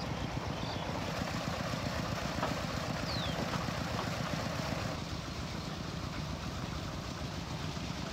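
An engine running steadily at idle, with a short falling chirp about three seconds in; the sound gets slightly quieter about five seconds in.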